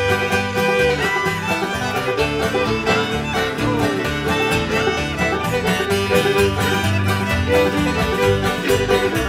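Live acoustic string band playing an up-tempo dance tune: fiddle carrying the melody over banjos, acoustic guitar and upright bass, with a steady, even beat.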